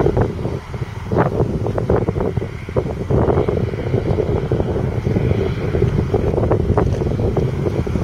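A Deutz-Fahr 5660-HTS combine harvester's 6.1-litre six-cylinder diesel running steadily, with irregular buffeting of wind on the microphone over it.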